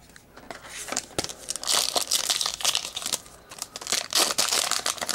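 Foil wrapper of a trading card pack crinkling and tearing as it is pulled from the box and opened, in irregular rustling bursts starting about a second in, with a short lull a little past the middle.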